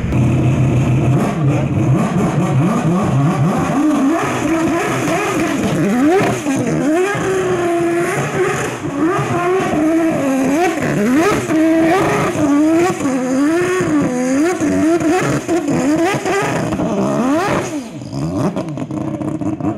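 High-performance car engine revving hard, its pitch swinging up and down about once a second for several seconds, then one last steep rise near the end.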